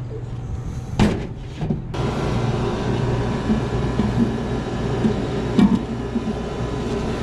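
A replacement exhaust fan motor being handled and worked into the metal fan housing's mounting bracket: a sharp metal knock about a second in, then a few lighter bumps, over a steady low rumble.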